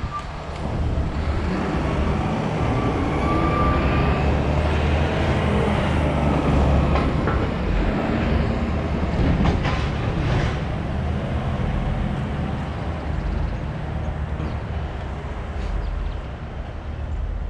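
Garbage truck's diesel engine running as the truck passes close by through an intersection, loudest in the middle and fading toward the end.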